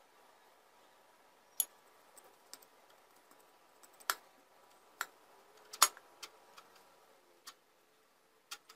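A wooden spoon clicking and knocking against a ceramic bowl while stirring honey into ground nuts and seeds: scattered sharp clicks a second or so apart, the loudest nearly six seconds in.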